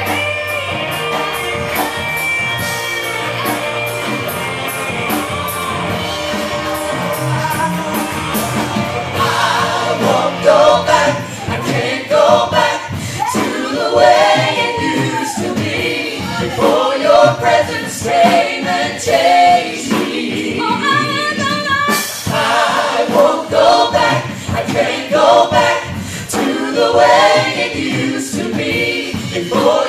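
Live worship band performing a gospel song: a group of male and female singers with bass guitar, keyboard and drums. About nine seconds in, the drums and instruments drop back and the singing voices carry the song.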